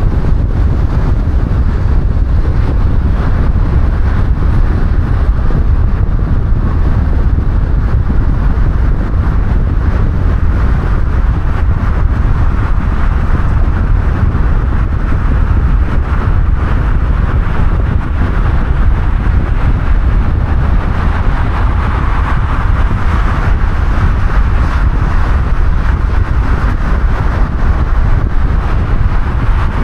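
Steady road and wind noise of a car driving: a constant low rumble under a hiss that grows a little louder about two-thirds of the way through.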